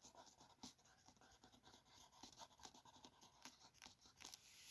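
Near silence: room tone with scattered faint small clicks and scratches.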